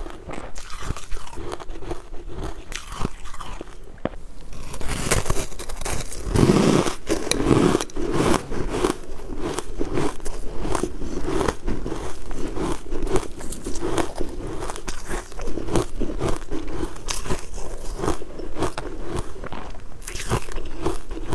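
Close-miked crunching and chewing of refrozen ice chunks coated in matcha powder: a dense run of crackly bites that grows louder and busier about four and a half seconds in.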